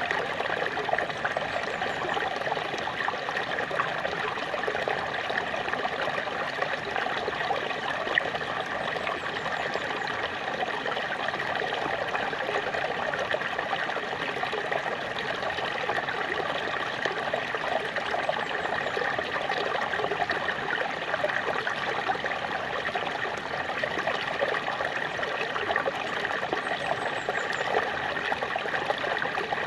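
A small waterfall splashing steadily: an even, unbroken rush of falling water.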